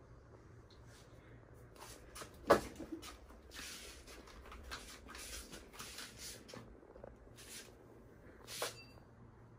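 Scratchy rustling as a kitten's paws and claws move across a corrugated cardboard scratching pad, in a run of short bursts, after a single sharp knock about two and a half seconds in.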